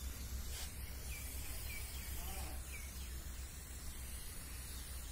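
Steady outdoor background noise with a low hum, and one short squirt of a hand-held trigger spray bottle about half a second in. A few faint bird chirps follow between about one and three seconds in.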